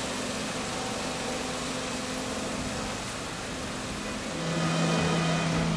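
Small Toyota hatchback's engine idling in a parking garage, a steady hum that grows louder about four seconds in.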